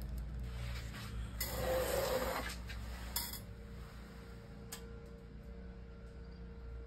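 Plastic resin cups and a small silicone mold being picked up and moved off a work mat: a rustle of about a second, then a single sharp click, with a few faint ticks later, over a low steady hum.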